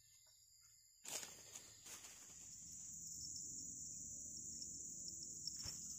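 Insects chirring steadily in a high pitch, with a sharp knock about a second in, then continuous rustling of grass and brush as a caught fish is lifted up the riverbank.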